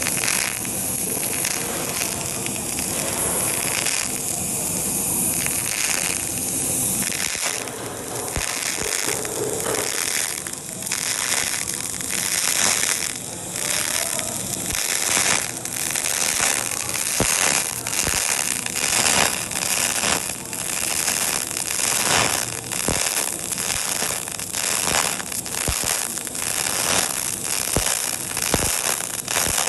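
DC TIG welding arc on brass, hissing steadily under argon, with irregular sharp crackles and pops that come more often from a few seconds in as the weld pool is worked with filler wire.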